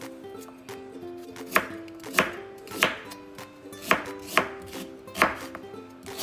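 Kitchen knife slicing fresh ginger on a wooden cutting board: about seven sharp knocks of the blade on the board, unevenly spaced, over light background music.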